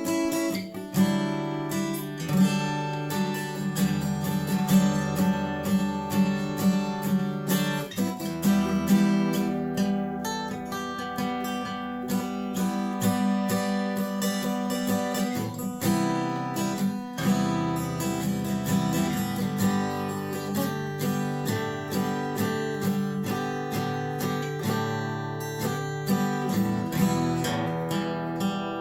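Washburn WD11SCE acoustic-electric guitar being played, strummed chords mixed with plucked notes in a steady flowing rhythm.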